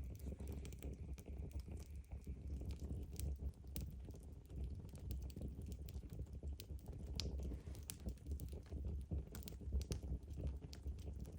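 Wood fire burning in a fireplace: irregular crackles and pops over a steady low rumble. A faint high whistle sounds for the first few seconds.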